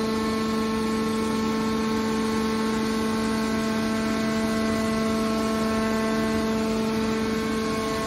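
Hydraulic power unit of a scrap metal baler running with a steady, even hum as the hydraulic cylinder swings the press lid closed.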